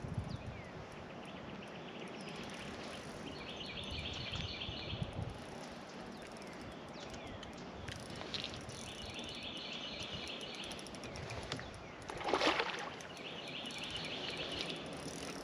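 A single loud splash at the water's surface about twelve seconds in, where the live mullet bait is swimming. Outdoor background with a high pulsed trill that repeats every few seconds.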